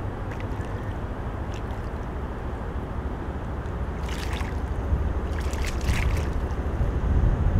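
American alligator thrashing a dead pelican's wing in shallow lake water: two bursts of splashing, about four seconds in and again about five and a half seconds in, over a steady low rumble that grows louder near the end.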